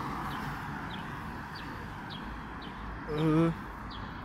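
Street ambience: a steady hum of noise with a short, high, slightly falling chirp repeating about every half second. A brief wavering voice, like a hum, comes about three seconds in.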